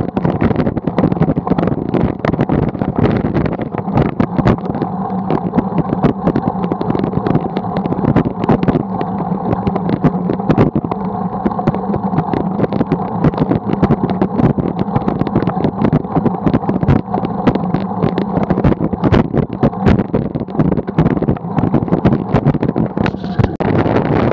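Steady wind and road noise from riding along a paved road, with constant rapid buffeting on the camera's microphone.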